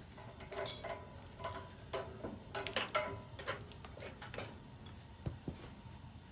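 Irregular clicks, knocks and light metallic clinks, a few of them ringing briefly, from tools and metal fittings being handled during plumbing work.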